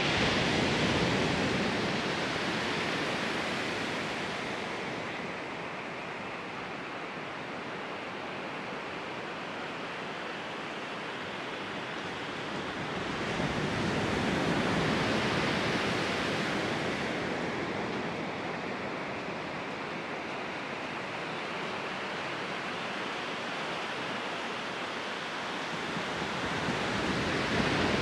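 Surf breaking and washing onto a beach, the rush of water swelling and fading with each wave, three surges roughly 13 to 14 seconds apart.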